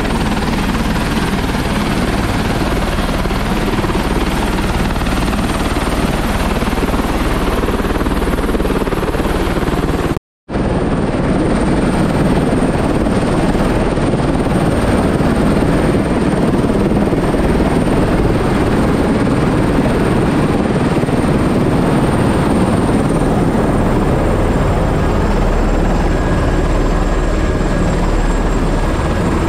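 Tour helicopter running on the pad: a loud, steady rush of rotor and turbine noise with a thin high whine over it. The sound breaks off briefly about ten seconds in.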